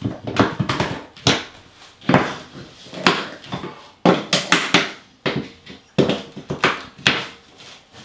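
Red plastic tile-leveling clips and wedges being cranked down with a leveling tool: a string of sharp plastic clicks, irregularly about one or two a second, as the clips pull bowed 12x24 porcelain tiles flat.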